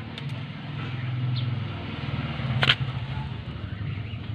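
A connecting-rod bearing cap being fitted under a Mitsubishi 4G18 engine, with a single sharp knock about two and a half seconds in, over a steady low hum.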